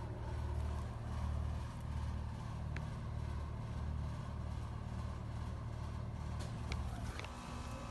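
Rheem Endeavor RP14AY heat pump starting up: a low, uneven rumble with a few short clicks, then about seven seconds in the rumble stops and a steady hum with several fixed tones sets in as the unit begins running.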